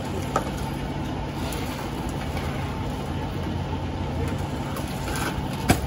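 A vehicle engine idling steadily as a low hum, with a light click under a second in and a sharp knock near the end.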